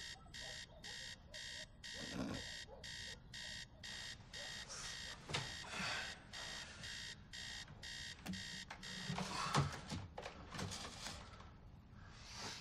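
Electronic alarm beeping in a fast steady rhythm, about two to three beeps a second. Rustling and a few knocks come in the later part, the loudest about nine and a half seconds in.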